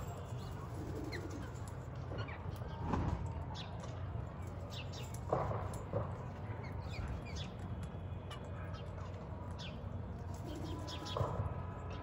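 Wild parakeets calling: scattered short, high chirps with a few louder, harsher calls every few seconds, over a steady low background rumble.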